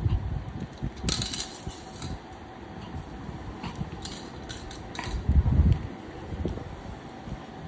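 A Pomeranian playing among hard plastic toy animals on a marble floor: a few light clattering knocks, about a second in and again around four and five seconds in. A dull rumbling bump about five and a half seconds in is the loudest sound.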